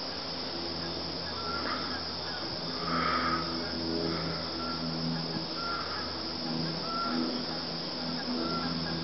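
Birds calling around a pond: short pitched calls repeating every half second to a second, with a few higher calls among them, over a steady low hum.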